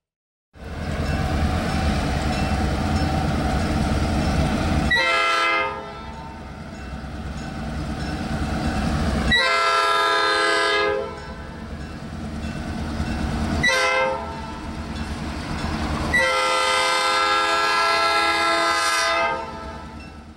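Diesel freight locomotive sounding its air horn in the grade-crossing pattern, long, long, short, long, each blast a chord of several notes. Under the horn is the steady rumble of the locomotives and train. The sound starts suddenly about half a second in.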